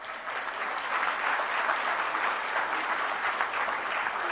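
Large audience applauding, the clapping swelling over the first second and then holding steady.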